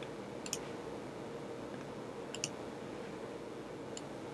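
A few faint computer mouse clicks, some in quick pairs, over low steady room hiss while sliders are adjusted in photo-editing software.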